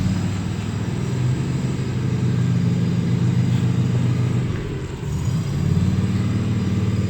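Tractor engine running steadily with a low hum; it eases off briefly about five seconds in, then picks up again.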